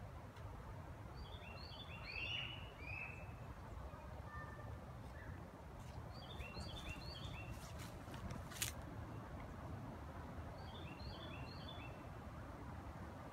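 A songbird sings a short phrase of quickly repeated chirping notes three times, a few seconds apart, over a steady low rumble of outdoor background noise. There is a single sharp click about two thirds of the way through.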